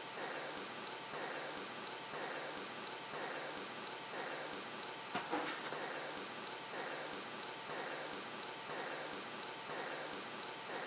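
Carrot and zucchini strips sizzling in a hot frying pan: a steady frying hiss, with a light knock about five seconds in.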